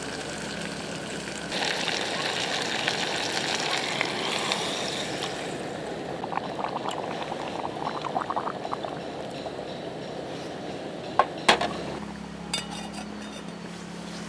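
Liquid pouring with a rushing sound for a few seconds, then scattered light clicks, two sharp knocks about eleven seconds in and a short clatter soon after.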